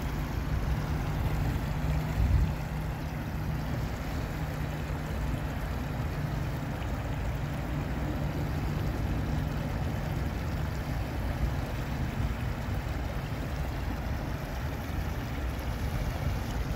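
Steady rush of a small creek spilling over rocks, with a low rumble underneath.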